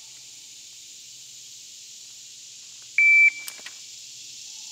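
Electronic shot timer giving its start beep: one short, high steady tone about three seconds in, followed by a few faint clicks.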